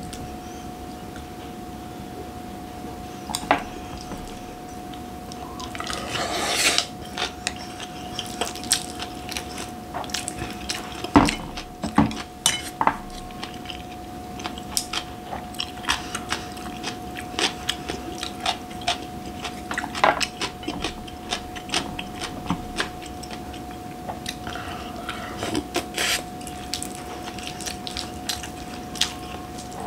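Wooden spoon clicking and scraping against a glass bowl as curry rice is mixed, with chewing and mouth sounds in between. There are many short clicks, with a couple of louder knocks near the middle, over a steady faint hum.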